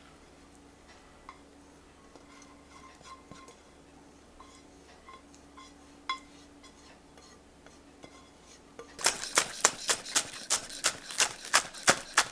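Cooked couscous poured from a steel saucepan into a glass bowl, a faint soft patter with a few light ticks and clinks. About nine seconds in, a chef's knife starts chopping spring onion on a wooden cutting board in quick, even strokes, about four a second. The chopping is much louder than the pouring.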